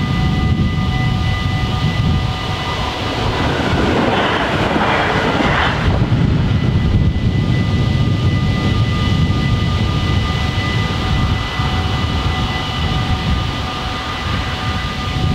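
Railway level-crossing bells ringing steadily as several continuous high tones, over a loud low rumble. A brief rush of noise comes about four seconds in and lasts some two seconds.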